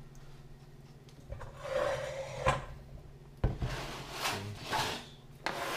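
Disposable aluminium foil pans crinkling and scraping as they are handled and shifted on a countertop, with a metal spoon scraping in the sauce-coated pan. Rubbing, crackling noises come in spells, with two sharp knocks in the middle.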